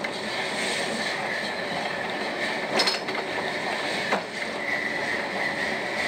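Iwashimizu Hachimangu funicular car running along its track, heard from inside the car: a steady rolling rumble of the wheels, with a thin high wheel squeal that grows near the end. Two sharp clacks come about three and four seconds in.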